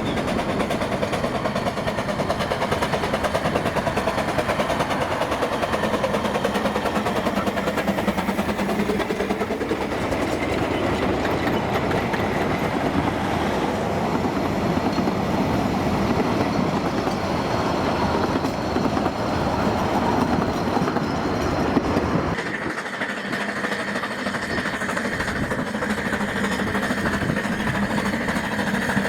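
Narrow-gauge steam locomotive Blanche, fitted with piston valves, starting away hard, its exhaust beats coming fast and steady. About two-thirds of the way through the sound changes: the low rumble drops away and a steady high tone comes in.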